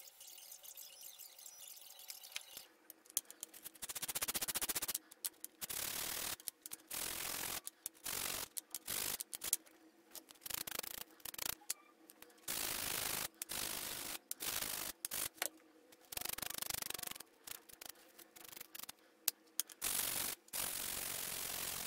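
Small stained wooden diamond pieces rubbed by hand on a sheet of sandpaper laid flat on a board. From about three seconds in, each stroke gives a rasping scrape of half a second to a second, repeated in uneven strokes.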